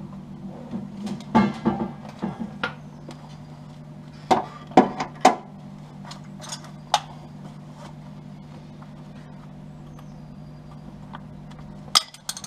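Scattered metallic clicks and knocks of tools and clamps being handled against a car's sheet-steel wing panel, three louder knocks in quick succession about four to five seconds in, over a steady low hum.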